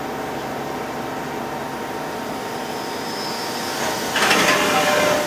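A 1998 Hitachi Seiki HT23J CNC lathe running a program, with a steady hum and faint whine. About four seconds in, a louder, rough machining noise lasts about a second as the turret comes in toward the chuck.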